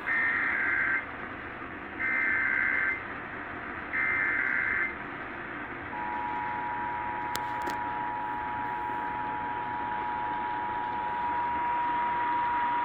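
Emergency Alert System test over AM radio: three one-second bursts of the screeching SAME digital header, then, about six seconds in, the steady two-tone EAS attention signal begins and keeps going, all under a constant hiss of AM reception.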